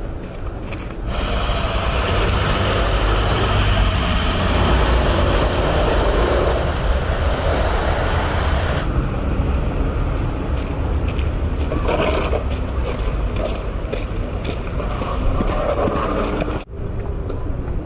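Street traffic during a snowstorm: a steady low rumble with a loud hissing vehicle pass lasting several seconds, then quieter traffic noise, broken by a sudden cut near the end.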